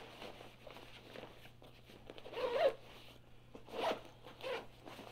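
A zipper on a Mystery Ranch Glacier backpack's top pocket being pulled shut in a few short, rasping pulls in the second half, after quieter rustling of the pack fabric as gloves are pushed into the pocket.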